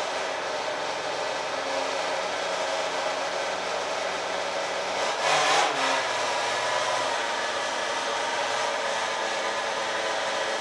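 Taylor 50cc two-stroke engine of a 1/5-scale RC vehicle running steadily on the stand, warming up from a fresh start; it briefly gets louder about five seconds in.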